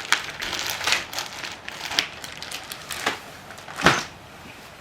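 A few sharp clicks and knocks of metal scooter parts and tools being handled as stunt pegs are fitted to a stunt scooter, the loudest knock about four seconds in.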